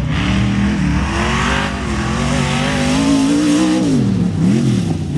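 Off-road race truck's engine running hard on a dirt track, its pitch climbing steadily, then dropping sharply about four seconds in, followed by a quick rev up and down.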